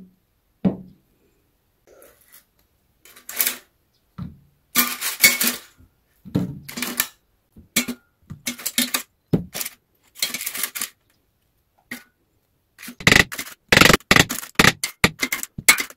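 Irregular clicks and clatters of food pieces and a utensil against a divided plate as sausage slices and garlic cloves are set on it, with a dense run of quick clicks near the end.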